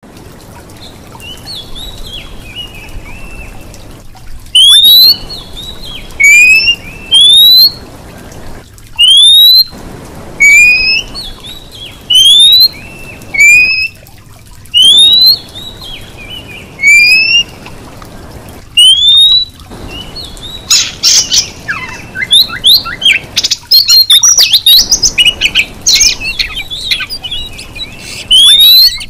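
Female Oriental magpie-robin whistling, the call a female uses to draw males. Loud rising whistles come one to two seconds apart from a few seconds in, then give way to a faster, busier run of quick notes and chatter in the last third.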